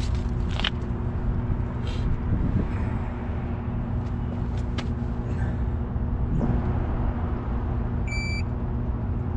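Steady low rumble with a constant hum from the city background. A few light clicks, then a short high electronic beep from the digital fish scale near the end.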